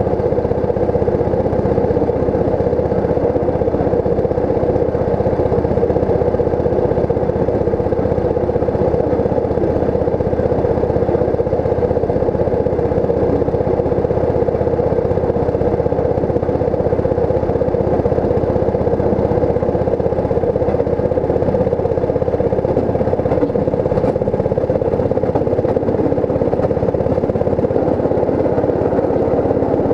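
Railroad speeder (rail motor car) travelling along the track, its engine and running gear making a steady, unbroken drone.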